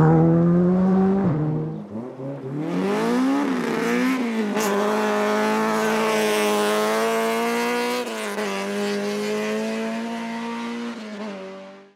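Rally car engines at full throttle on a gravel stage: one engine's note drops and fades in the first two seconds, then another revs up through several gear changes and holds a high, steady note. It eases off about eight seconds in and fades out at the end.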